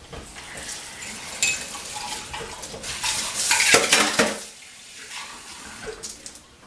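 Kitchen bowl and utensils clattering and scraping as dough is worked, with a sharp clink about a second and a half in and the busiest, loudest handling around three to four seconds in.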